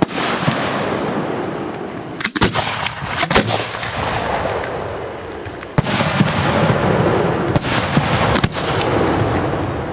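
Aerial firework shells bursting: sharp bangs at irregular intervals, several in quick succession a few seconds in, over a continuous crackle.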